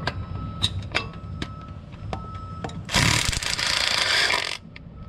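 Light metallic clicks of a socket being fitted onto an 8 mm bolt. About three seconds in, a small power tool runs for about a second and a half, backing the bolt out of the crankshaft position sensor.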